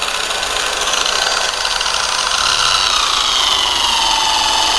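J.LD J3310 variable-speed electric car polisher running at speed 2 with its foam pad on the paint; the motor's whine drops in pitch about two seconds in and then holds steady. At speed 2 the torque is starting to be stable.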